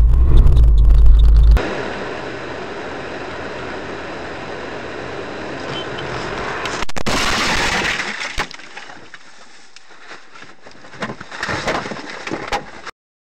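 Dash-cam audio from inside a car: a loud low road rumble cuts off after about a second and a half, then steady driving noise. About seven seconds in comes a car collision, a sudden loud impact with breaking glass, followed by scattered knocks and rattles.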